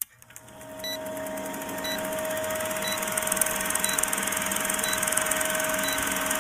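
Film-projector countdown sound effect: a projector running with a fast rattle and a steady hum, with a short tick about once a second. It fades in over the first second.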